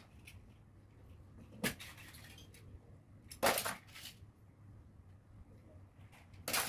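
Small plastic toys clattering as they are picked up and dropped back onto a pile on a hard floor: three short clatters, the loudest about halfway through.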